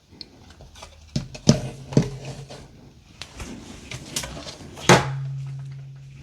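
Pieces of a storage organizer knocking and clicking as they are handled and fitted together during assembly. A louder knock about five seconds in leaves a low ringing that fades away.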